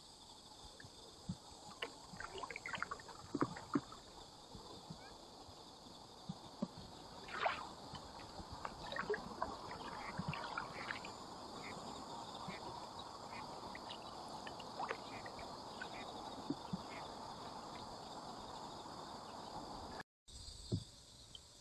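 A MyCanoe Duo folding canoe being paddled on calm water: paddle strokes dipping and sloshing, with drips and small knocks against the hull. A steady high-pitched hum runs underneath.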